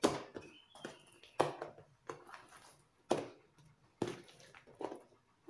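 Oiled hands stretching and pressing a wet, high-hydration focaccia dough across a metal baking tray: short, sticky squelches, about once a second.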